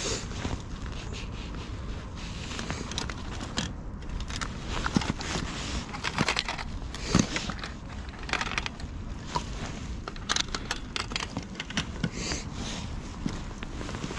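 Irregular clicks, rattles and scrapes, the loudest a few seconds in, over a steady low rumble.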